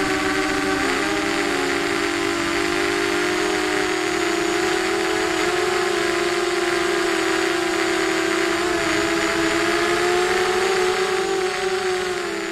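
ZMR250 quadcopter's brushless motors spinning 5x4 propellers, a steady whine of several close pitches over a rushing hiss, wobbling briefly about a second in and easing slightly near the end.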